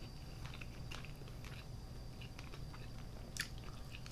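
Faint eating sounds of Chinese barbecue duck: crispy skin being bitten into and chewed, with a few small crackles, the sharpest about three and a half seconds in.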